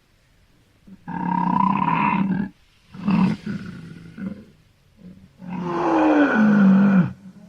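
Wild boar calling three times: a long call, a short one, then a long call that falls in pitch at its end.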